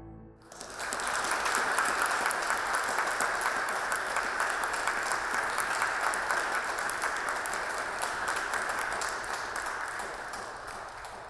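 Audience clapping and applauding steadily as a speaker enters. It begins about half a second in and dies away near the end.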